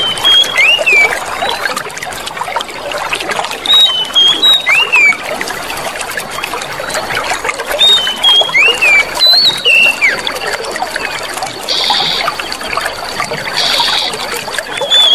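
Clear running water trickling steadily, with short bursts of bird chirps every few seconds.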